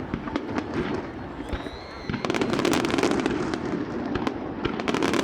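Fireworks bursting and crackling in quick succession, the cracks growing much denser about two seconds in, with a short high whistle just before.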